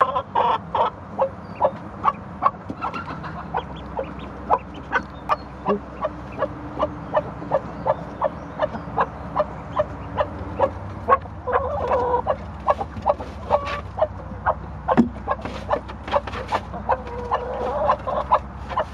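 A black hen mothering a duckling, clucking steadily at about two short clucks a second, the calls of a broody hen to her young. Twice, once midway and once near the end, she gives a longer drawn-out call.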